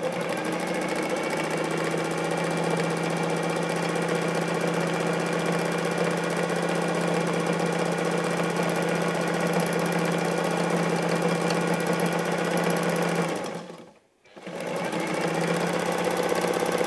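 Electric sewing machine running steadily at speed, stitching a dense zigzag fill-in across an appliqué piece; it stops for about a second near the end, then starts up again.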